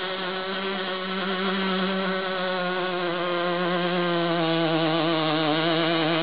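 A 1/5-scale radio-controlled pulling tractor's small two-stroke string-trimmer engine held at full throttle, a steady high buzz with a slight waver in pitch, under load as it drags a weight-transfer sled down a dirt track.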